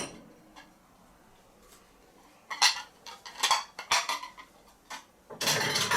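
Crockery and cutlery clinking in a dishwasher rack as the clean load is handled: several separate clinks, then a longer clatter near the end.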